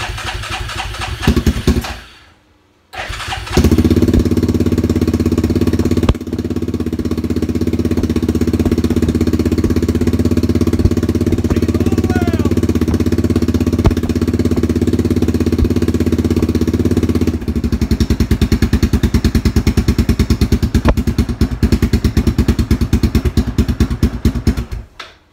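Cold start of a 2003 Yamaha Grizzly 660's single-cylinder four-stroke engine, heard through its aftermarket knockoff R2 power exhaust tip. It cranks briefly, pauses, cranks again and fires, then runs with a steady deep exhaust note. Later the note settles into a more distinct pulsing idle before the engine is shut off near the end.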